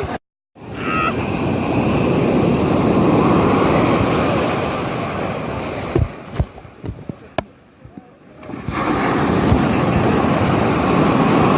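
Ocean surf breaking and rushing on a sandy beach, one wash of noise swelling and fading at about six seconds, then the next wave surging in a couple of seconds later, with wind buffeting the microphone.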